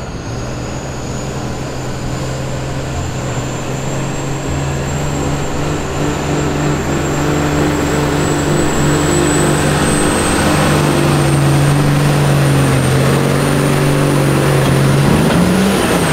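Dodge Ram diesel pickup pulling a weight-transfer sled at full throttle: the engine drones steadily under heavy load and grows slowly louder through the pull, with a high turbo whistle climbing gradually in pitch.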